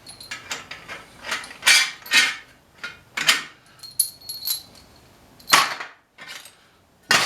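Metal tools and engine parts clinking and clanking, a string of sharp knocks with some faint metallic ringing, as the cylinder head is worked off an 8 hp Briggs & Stratton flathead engine.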